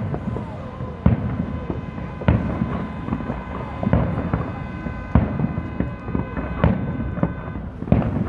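Aerial fireworks shells bursting in a display: seven sharp booms, one every second or so.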